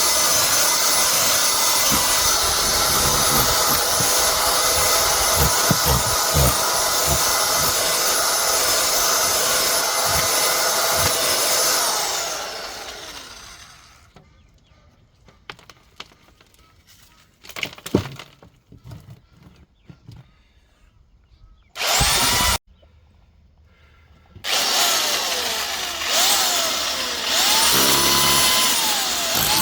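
Electric hammer drill with a chisel bit chipping through a brick wall: it runs steadily under load, then winds down about twelve seconds in. A few knocks and clatter follow, a brief burst of the drill about twenty-two seconds in, and it starts again near the end with its pitch rising and falling as it bites.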